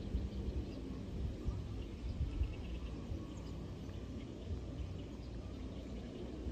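Wind gusting over the microphone as an uneven low rumble, with faint bird chirps in the background, a short run of them about two seconds in.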